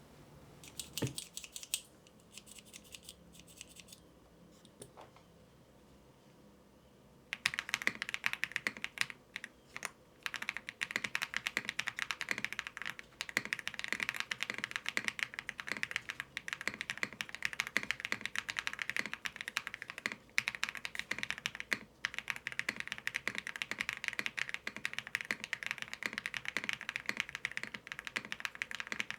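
Typing on a mechanical keyboard fitted with Akko CS Silver long-pole linear switches, factory-lubed on the rails and spring only. A few scattered keystrokes come first, then steady fast typing starts about seven seconds in.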